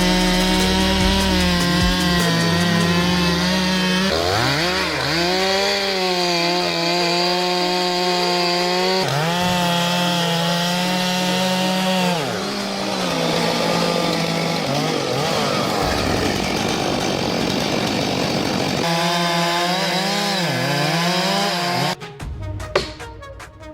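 Two-stroke chainsaw running at high revs and cutting wood. Its steady high whine sags in pitch several times as the chain bites in and recovers as it eases off, across several short cuts. Near the end the saw stops and a few sharp knocks follow.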